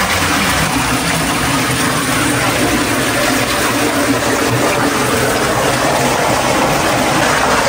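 Steady rushing and churning of hot sulphur spring water welling up into a rock pool inside a cave.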